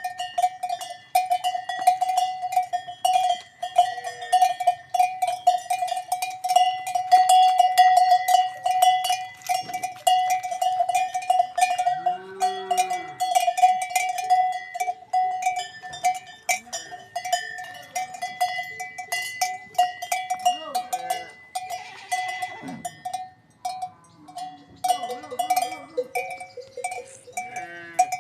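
Bells on grazing livestock clank and ring continuously and irregularly, with a few short animal calls, the clearest about twelve seconds in.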